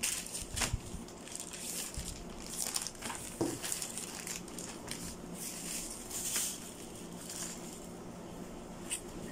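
Clear plastic garment bags crinkling and rustling in irregular bursts as clothes are pulled out and handled.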